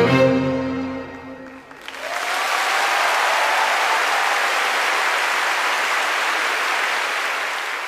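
The final chord of a string ensemble dies away, and about two seconds in a large arena audience breaks into steady applause that starts to fade near the end.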